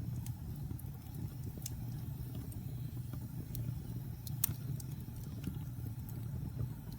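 Wood fire burning with a steady low rumble and scattered sharp crackles and pops, one louder pop about four and a half seconds in.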